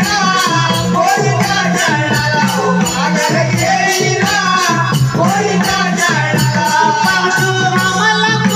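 Konkani jakhadi folk music: a gan (devotional invocation song) sung by a male lead voice over a steady, fast jingling of metal percussion and a repeating drum beat.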